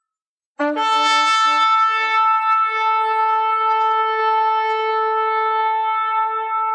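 A shofar blast: after about half a second of silence, a brief low note jumps up into one long, steady held note.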